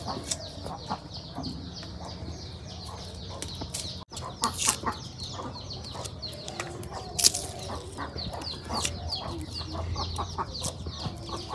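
Chickens clucking over many quick, high, falling chirps, with a few sharp knocks. The loudest knocks come about four and a half and seven seconds in.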